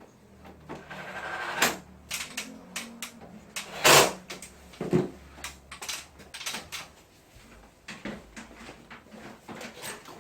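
A run of clicks and knocks, as of objects being handled and set down, with a short rush of noise about a second and a half in and a louder one about four seconds in.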